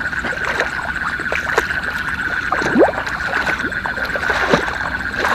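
Footsteps splashing and sloshing through the shallow water and mud of a rice paddy, in short irregular strokes. Behind them runs a steady high-pitched night chorus from the paddy.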